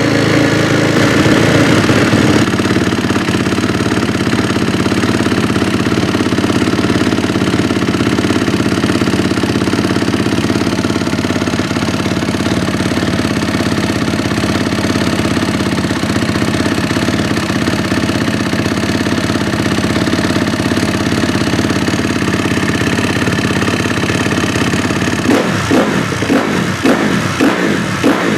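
Honda CRF250's single-cylinder four-stroke engine running steadily at a fast idle, dropping slightly about two seconds in, then blipped up several times near the end. It is freshly rebuilt with a new camshaft, fitted to cure a knock from the old cam, and sounds much better.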